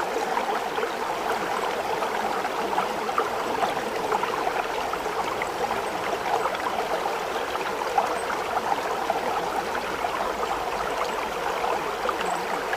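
Running water babbling steadily, like a small stream, without a break.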